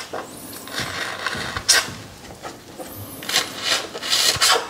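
A foaming pump bottle squirts diluted shampoo foam in several short strokes: one about a second and a half in, and a quick run of three or four near the end. Hands rub softly on wet fur between the squirts.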